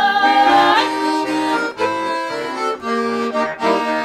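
Garmon (Russian button accordion) playing an instrumental interlude between verses of a folk song: a melody over bass-and-chord accompaniment. A held sung note ends just under a second in.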